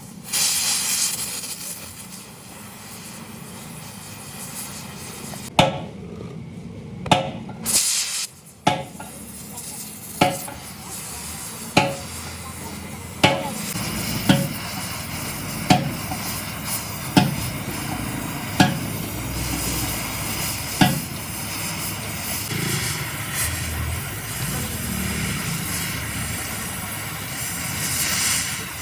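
Repeated sharp, ringing strikes of a hammer on metal, about one every second and a half for some fifteen seconds, over a steady hiss.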